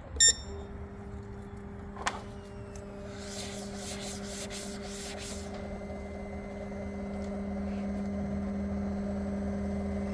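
Autool CT400 fuel injector tester giving a short beep as it is started, then its fuel pump running with a steady hum that slowly grows louder as it builds pressure for an injector leak test. A click comes about two seconds in and a pulsing hiss between about three and five and a half seconds.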